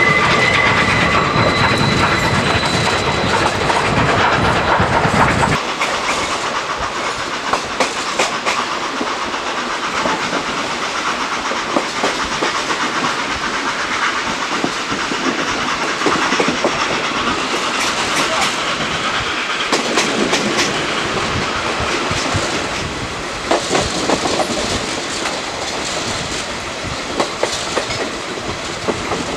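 Passenger coaches of a South African Railways GMAM Garratt-hauled train in motion, heard from an open coach window: wheels rumbling and clicking over the rail joints. Near the start there is a steady high squeal, typical of wheel flanges on a curve. About five seconds in, the heavy low rumble drops away, leaving irregular clicks and a lighter running noise.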